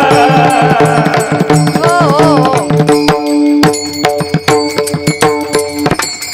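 Kirtan music: a woman's singing voice over steady held harmonium tones, with hand-drum strokes and small hand cymbals. The strokes come thick and fast in the second half and end on a final stroke near the end.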